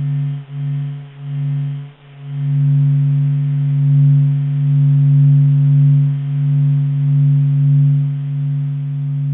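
The Sun's natural vibrations made audible: a low pulsing hum, one deep steady tone with a fainter higher tone above it. It dips and returns several times in the first two seconds, then swells slowly up and down.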